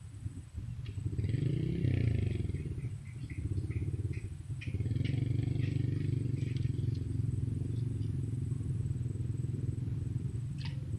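Small motorcycle engine running under way, revving up and easing off about two seconds in, then holding a steady pace, with light rattling from the bike.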